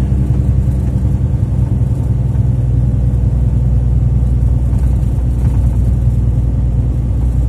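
Engine and road noise of a moving vehicle heard from inside the cab: a steady low rumble with an even engine hum and no change in revs.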